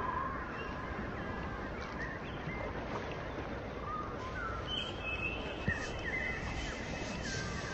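Ambient sound-art track: a steady rushing noise with scattered short chirping calls that glide up and down.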